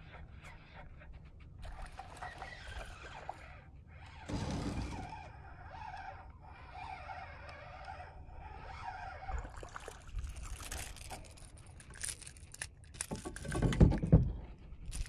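Spinning reel being cranked as a small fish is reeled in on a rod, with scraping and clicking from the reel and handling. Near the end a few loud knocks and splashes as the fish is swung out of the water onto the kayak.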